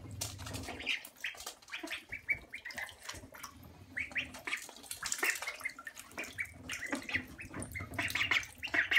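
Ducklings dabbling and gulping food from a plastic cup, their bills making quick wet clicks and gargling slurps, with short high peeps that come more often near the end.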